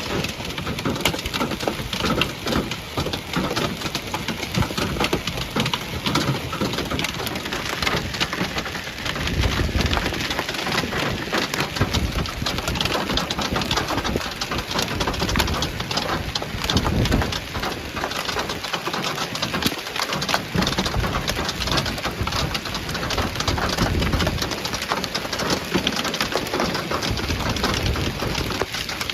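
Heavy hail pelting down, a dense, continuous patter of countless small hard impacts, with deeper swells now and then.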